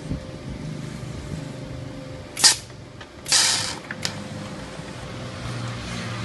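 Multipro TIG 160 G KR welding setup: a steady hum with short bursts of hissing from the TIG torch. The sharpest burst comes about two and a half seconds in and a longer one about a second later.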